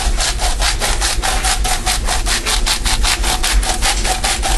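Hand-twisted pepper mill grinding in a fast, even rhythm of crunchy strokes, about seven a second.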